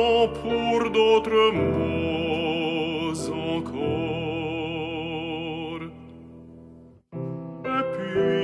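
Tenor singing an art song in operatic style with piano accompaniment, holding a long note with wide vibrato. The music fades about six seconds in, drops out for a moment, then voice and piano come back in.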